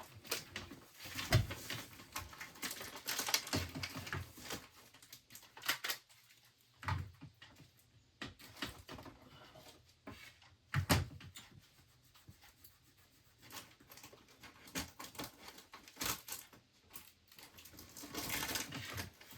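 Irregular clicks, light knocks and rustling as small items and their packaging are handled and sorted by hand.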